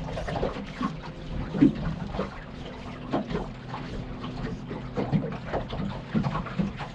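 Small waves lapping and slapping irregularly against an aluminum boat hull, over a low rumble of wind on the microphone.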